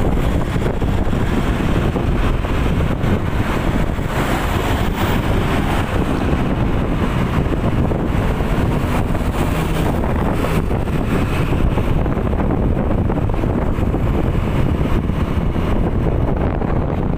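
Wind buffeting the microphone over the steady rumble of a moving vehicle and its road noise.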